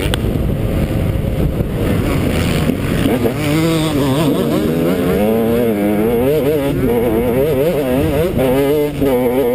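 Motocross bike engine heard from the onboard camera, with a constant rush of noise under it. From about three seconds in, the engine note rises and falls quickly again and again as the throttle is worked through the track.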